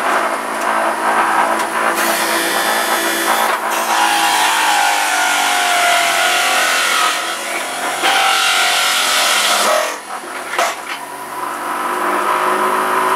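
Electric centrifugal juicer running at high speed and grinding spinach as it is pushed down the feed chute. The motor's whine sags in pitch under the load through the middle, and the noise drops briefly about ten seconds in.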